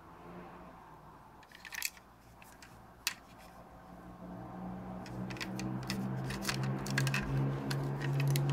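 Small clicks and taps of a metal diecast toy Hummer being handled and turned in gloved hands, coming thicker in the second half. Under them a low steady hum grows louder from about halfway.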